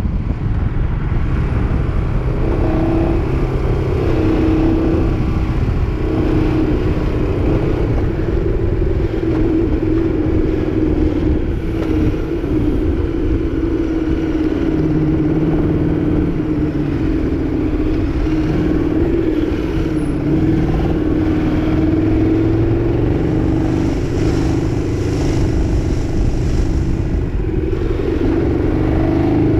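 KTM 1290 Super Duke R's big V-twin engine running at low, steady revs while riding slowly in traffic, its note wavering only slightly, over a low rumble of wind and road noise.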